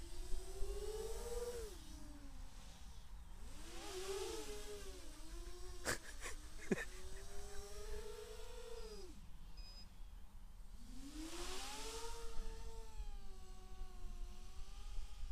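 Large quadcopter's 2205 brushless motors and 6-inch propellers whining, the pitch rising and falling again and again with the throttle, fading out briefly about ten seconds in. Two sharp clicks about six seconds in, over a low rumble.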